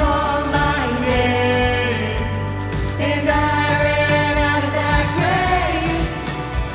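Contemporary worship band playing, with singers holding long notes over steady bass and drum beats.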